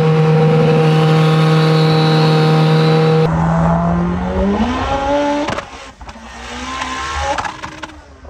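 Built, big-turbo Mitsubishi Evo 8's turbocharged 4G63 four-cylinder, heard inside the cabin, droning steadily at cruise. Then the revs climb through two gears under hard acceleration, with a brief sharp snap at each shift, a little past halfway and near the end.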